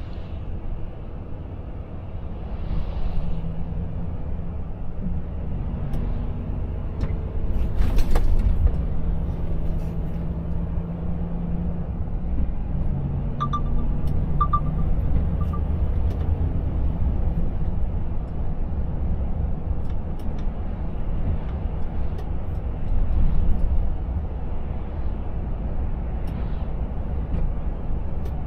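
Volvo FH 500's 13-litre six-cylinder diesel and tyre noise heard inside the cab as the truck picks up speed on a wet road: a steady low rumble with engine tones that step in pitch. A short sharp hiss comes about eight seconds in.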